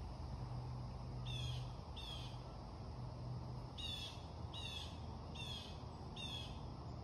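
A short, high call note repeated six times, about one a second, over a steady low hum.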